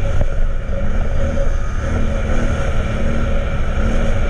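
ATV engine running steadily under way on a dirt track, its pitch wavering a little as the throttle shifts.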